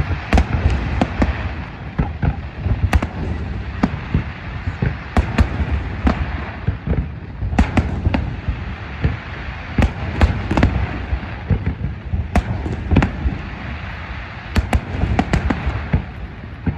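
Fireworks display: a dense, irregular run of sharp shell bursts and cracks, several a second, over a continuous low rumble.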